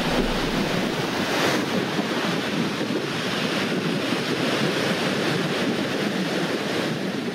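Ocean surf washing onto the shore: a steady rush of waves.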